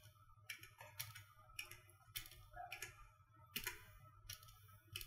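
Faint computer keyboard clicks: about ten irregular key presses over a low, steady hum.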